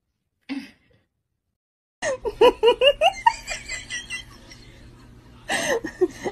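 A person laughing in quick, rhythmic bursts that fade out, then start up again near the end.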